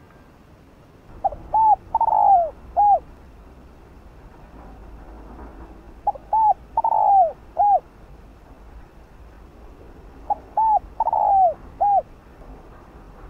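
Spotted dove cooing its song three times, about four and a half seconds apart. Each phrase is a quick run of short coos with one longer coo that falls in pitch near its end.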